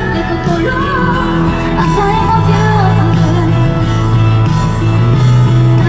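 A woman singing a Japanese pop song into a karaoke microphone over a recorded backing track.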